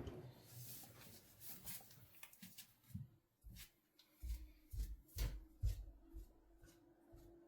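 Siemens Siwamat IQ 716 washing machine with its drum at rest mid-cycle: the motor sound cuts off at the start, leaving scattered soft low thumps, light clicks and a faint steady hum.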